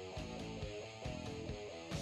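Hard rock backing music: a plucked electric guitar riff over a steady drum beat.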